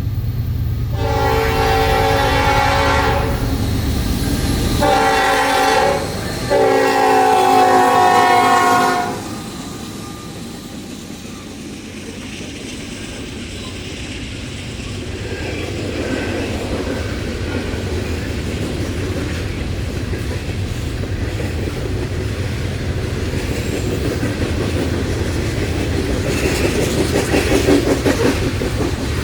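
Norfolk Southern diesel locomotive air horn sounding three blasts, long, short, long. Then the train rumbles steadily as the locomotives and loaded coal cars approach, with wheel and rail noise growing louder toward the end.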